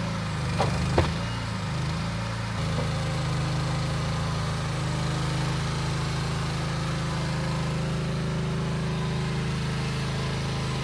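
Mini excavator engine running steadily, with two sharp clicks about a second in; its note settles and evens out at about two and a half seconds in.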